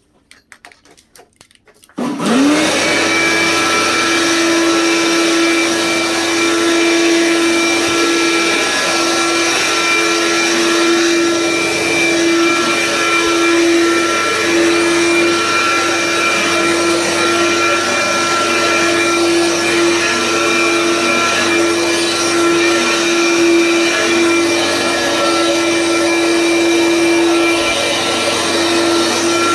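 Dirt Devil Room Mate upright vacuum cleaner switched on about two seconds in. Its motor spins up within a fraction of a second, then runs steadily with an even pitched hum as it vacuums.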